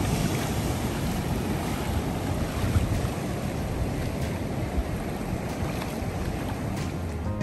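Ocean surf breaking on rocks and washing across a flat rock shelf, mixed with wind buffeting the microphone: a steady rushing noise.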